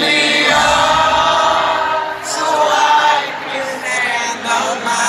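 Many voices singing a slow pop ballad together at a live stadium concert, heard from within the crowd.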